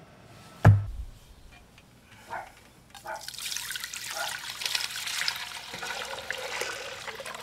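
A single low thump about a second in, then liquid poured in a steady stream from a stainless steel pot into a red enamel-coated pot, splashing as it lands.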